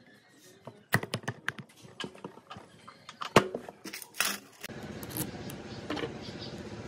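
Metal housing parts of an electric hammer drill being handled and fitted together by hand: a string of sharp clicks and knocks, the loudest about halfway through. Near the two-thirds mark they give way to a steady background hiss with a few light ticks.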